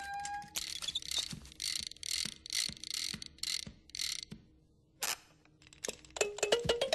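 Mechanical ratcheting sound effect: a run of about ten short whirring strokes, roughly three a second, each with a click. Then a pause, a single sharp click, and a quick clatter of ticks near the end.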